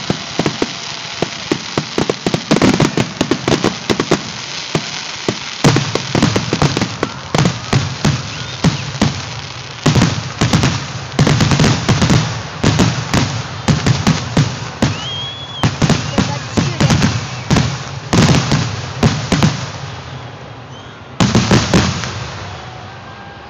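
Aerial firework shells bursting at a fireworks display: a rapid, irregular string of sharp bangs over steady background noise. A final tight volley of bangs comes near the end, then the sound tails off.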